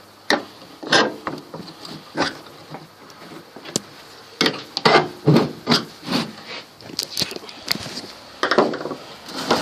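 A toolbox compartment being worked open and its contents handled: an irregular series of short knocks, scrapes and rattles.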